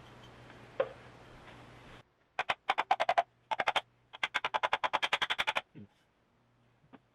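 Rapid clicking in three runs, about ten sharp clicks a second, from hand work on an old air compressor. A faint steady hum stops just before the clicking begins.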